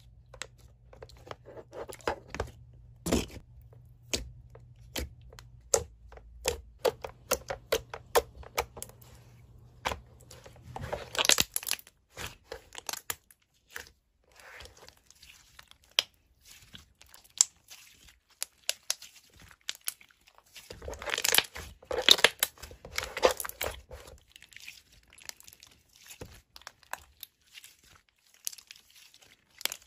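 Close handling noises: many sharp crackles and clicks, with longer crinkling, tearing stretches about eleven seconds in and again from about 21 to 24 seconds.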